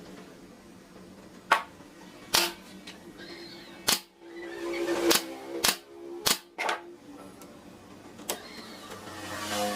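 A series of sharp knocks, about eight at uneven intervals, over a faint steady tone.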